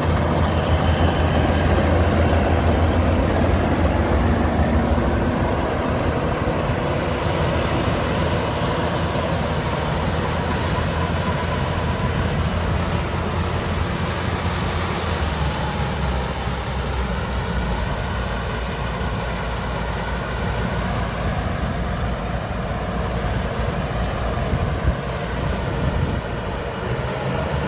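Yanmar AW82V rice combine harvester running at work, its diesel engine giving a steady low hum under the clatter of the cutting and threshing. It is a little louder for the first few seconds, then holds steady.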